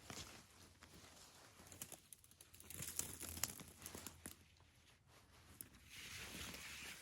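Faint rustling and crinkling of a poncho being handled while a shelter is pitched, with scattered small clicks, growing into a denser rustle near the end.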